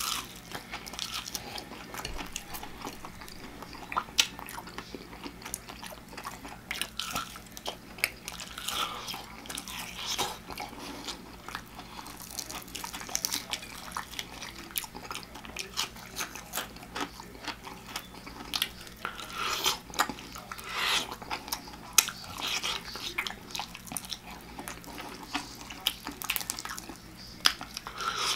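A person biting into and chewing a deep-fried chicken leg: crunching of the fried breading and wet chewing, heard as many short, irregular crackles and clicks.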